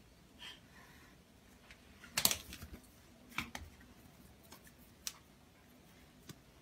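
Hairless cats scuffling by a wooden door: faint scattered taps and clicks of paws, with a louder knock about two seconds in.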